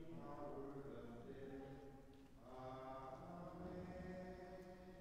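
Faint, slow chant-like hymn singing with long held notes. One phrase fades out about two seconds in and the next begins about half a second later.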